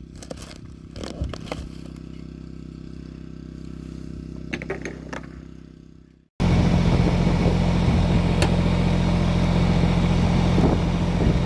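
Tractor engine running steadily with a few knocks and clatter over it. The sound cuts off abruptly about six seconds in and comes back as a louder, closer engine hum.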